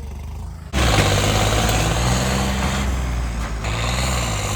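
John Deere 5210 tractor's diesel engine: a low hum that jumps suddenly to a loud, hard-working run under throttle about a second in. Its pitch rises and falls a little as the tractor pulls away.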